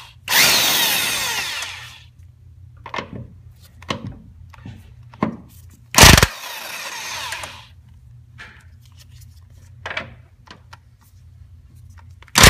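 Power impact wrench on a long extension spinning off the 15 mm nuts of a Mustang's strut top mount: three bursts, each opening with a sharp hit and falling in pitch as it winds down, with small clicks of socket and nuts being handled in between. A steady low hum runs underneath.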